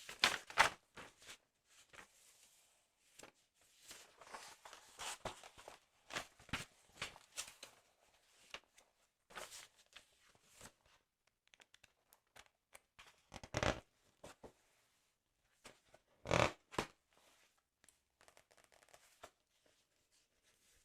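Close-miked paper handling of a sticker album: irregular rustling and crinkling, with louder swishes at the start and twice in the later half.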